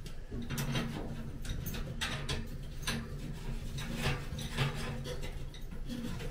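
Light metal clinks and taps of metal shelving parts being handled as the end pieces are screwed on, a dozen or so scattered through, over a steady low hum.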